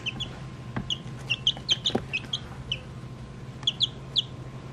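Week-old silkie chicks peeping: short, high chirps, several a second in irregular runs, over a steady low hum.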